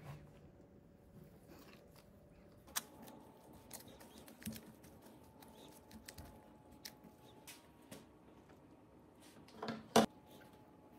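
Gloved hands squeezing and mixing crumbly oat-flour scone dough in a glass bowl: soft crumbly squishing and rustling with scattered small clicks. A short louder knock comes near the end.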